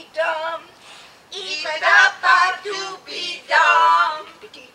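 Clowns' voices in a run of high, sing-song calls with no real words, several voices together; the loudest come about a second and a half in and again near four seconds.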